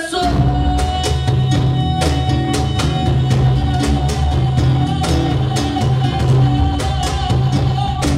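Live Peruvian criollo band playing: cajón strikes and bass guitar in a steady rhythm with guitar, and a single long note held over them for almost the whole stretch.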